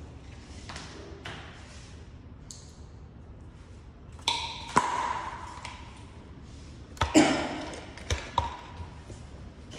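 A bright bell-like ping, struck with a sharp knock, rings about four seconds in and again about seven seconds in, each fading over about a second, with a few lighter knocks after the second.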